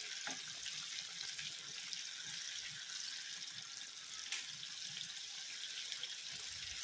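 Batter-dipped ripe jackfruit pieces deep-frying in hot sunflower oil: a steady sizzling hiss, with a faint click about four seconds in.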